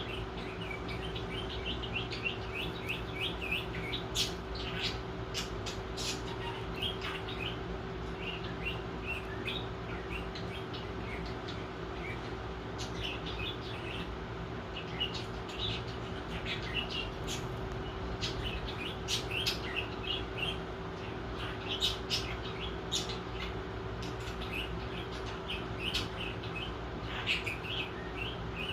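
Small birds chirping in many short, quick calls, with a few sharp clicks, over a steady low hum.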